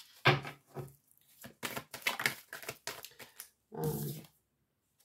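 Oracle cards being handled and shuffled: a run of quick, sharp papery clicks, with a short breathy voice sound near the end.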